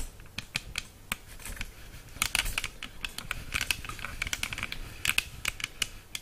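Handling noise from a camera being adjusted by hand: irregular light clicks and taps, bunched more thickly about two seconds in and again around five seconds in.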